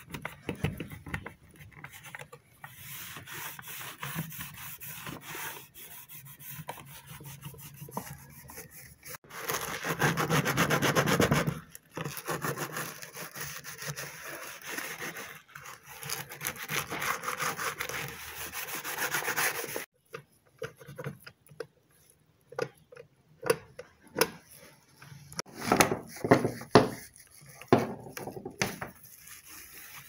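A cloth rubbing and wiping the plastic base of an Oster blender, a continuous scrubbing noise that is loudest around ten seconds in. After about twenty seconds the wiping stops, leaving scattered knocks and handling sounds.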